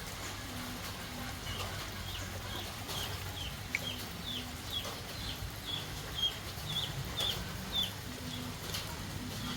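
Chickens peeping: a run of short, high calls, about two to three a second, each dropping in pitch at its end, over a steady low background rumble.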